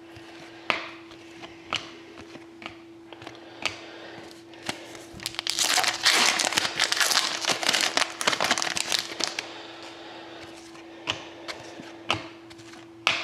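A hockey-card pack's foil wrapper being torn open and crinkled for a few seconds in the middle, between scattered light clicks of cards being handled. A faint steady hum sits underneath.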